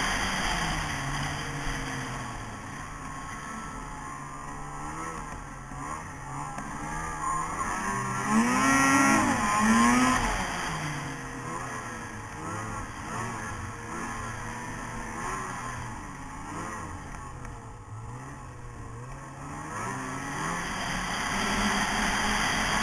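Snowmobile engine running while riding along a trail, its pitch rising and falling with the throttle. It revs up loudest about eight to ten seconds in, eases back, and picks up again near the end.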